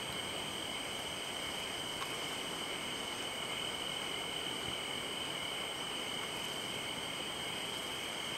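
Night insects, crickets, trilling in a steady unbroken chorus of high tones over a constant background hiss.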